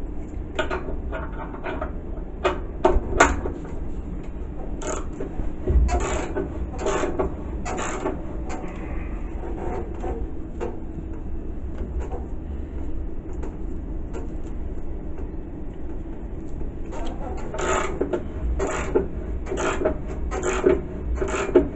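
Irregular metallic knocks and clanks of tools and gloved hands working on an electric motor's mounting while the drive belts are tensioned. There are a few sharp knocks about three seconds in, a run of them a few seconds later and another run near the end, over a steady low hum.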